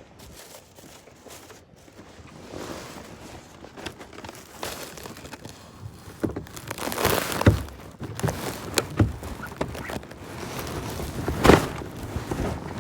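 Muffled rustling and irregular knocks from a recording device carried shut inside something, with two louder thuds about seven and eleven seconds in.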